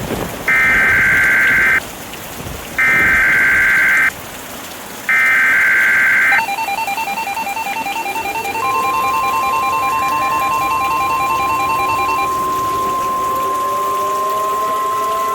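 Emergency Alert System tones: three bursts of the SAME header's digital data screech, then a pulsing two-note attention tone. About two-thirds of the way in, the steady NOAA Weather Radio warning alarm tone joins and holds to the end. Faint rising glides and steady rain noise sit underneath.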